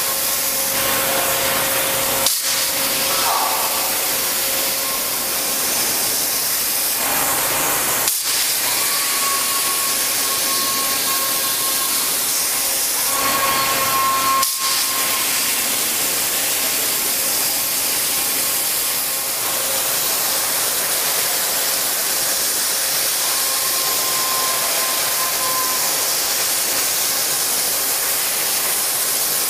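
Multi-head CNC waterjet cutting machine jetting high-pressure water through its nozzles while cutting a plate: a loud, steady hiss with faint steady tones beneath it, broken by three very brief gaps.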